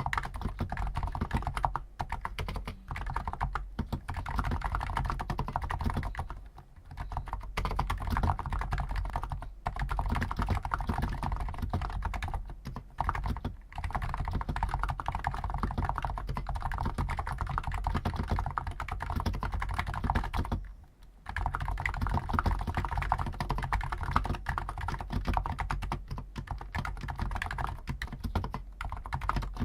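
Fast, continuous typing on a Hansung GTune CHL5 XRGB keyboard with stock 50 g electro-capacitive (non-contact) switches, with a few brief pauses.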